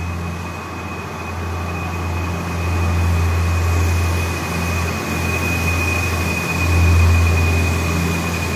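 Renfe TRD (class 594) diesel multiple unit pulling out, its diesel engines giving a steady deep drone with a high whine above it. The drone dips briefly a few times and is loudest about seven seconds in.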